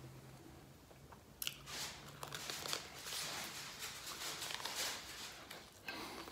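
Close biting and chewing of a toasted Texas toast breakfast sandwich: irregular crunching mouth noises that begin about a second and a half in and keep going for several seconds.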